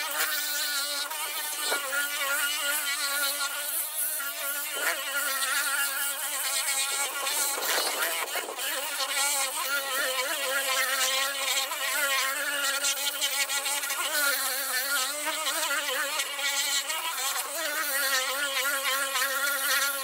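Handheld orbital car waxer running, its small motor buzzing steadily as the soft pad, loaded with rubbing compound, is worked over an oxidized plastic headlight lens. The pitch wavers slightly as the buffer is pressed and moved.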